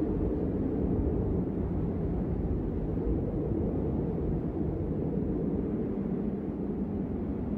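A low, steady rumble with no clear pitch, easing slightly toward the end.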